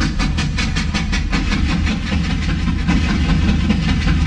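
Steam locomotive running: rapid, even chuffs about five a second over a steady low rumble and hiss.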